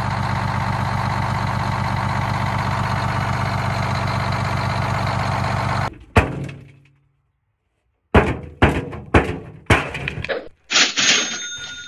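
A handheld power tool, used here to drill out the rivets holding a sheet-metal air duct, runs steadily for about six seconds and then stops abruptly. A string of sharp knocks follows, about two a second.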